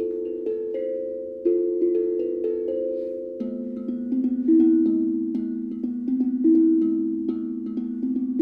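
Steel tongue drum played with mallets: a slow, meditative melody of struck notes that ring on and overlap. About three and a half seconds in, the strikes come faster and lower notes join.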